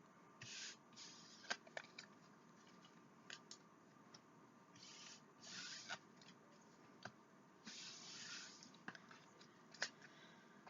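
Tarot cards being handled: three short rustles of cards sliding against each other, with scattered light clicks and taps of cards on the table.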